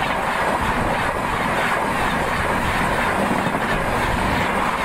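A train passing at speed, its wheels running over the rails in a loud, steady rush of noise.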